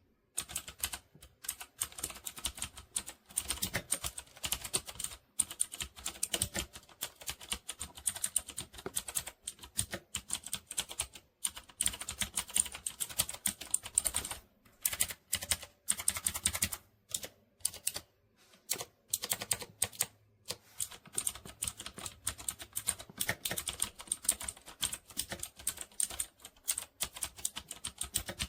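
Fast typing on a mechanical keyboard with red linear switches: a dense, rapid clatter of key presses, broken by a few brief pauses.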